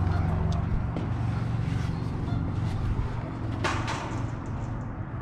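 Steady low rumble throughout, with a few light clicks and a brief scuff about three and a half seconds in.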